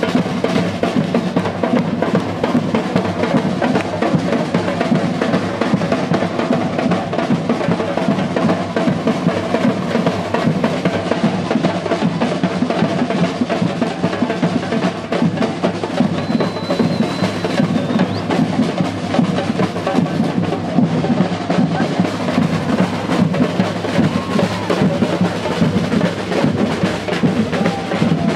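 Batucada percussion band playing a fast, dense drum rhythm of bass drums and snares, without a break.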